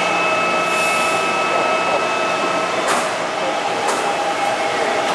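A Taipei MRT C321 electric train standing at the platform with a steady electrical whine. There is a short hiss of air about a second in, then two sharp clicks about a second apart as the doors work, after which the whine shifts slightly higher.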